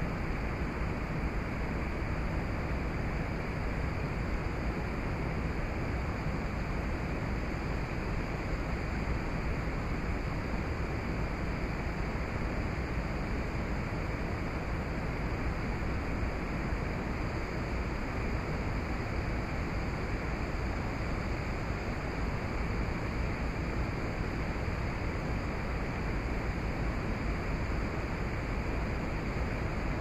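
Steady outdoor rushing noise with a strong low rumble, even and unbroken, with no distinct events in it.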